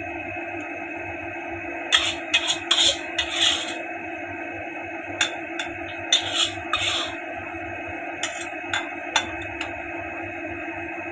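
Steady background music, with a utensil scraping and clinking against a cooking pan in irregular bursts, as in stirring food.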